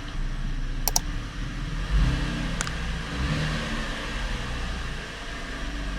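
2015 Chevrolet Camaro's 3.6-litre V6 engine running, with a swell in engine sound about two seconds in. Two sharp clicks sound, about a second in and again past two and a half seconds.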